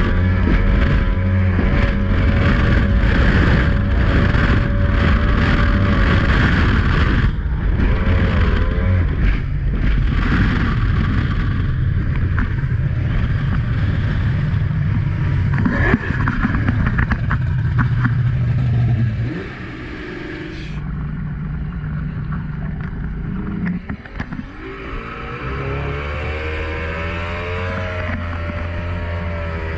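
Mercury 2.0-litre V6 two-stroke outboard driving a sportboat at speed, with water splashing and slapping against the hull. After about twenty seconds the engine throttles back and runs quieter, then a few seconds later it picks up again, its pitch rising as it accelerates.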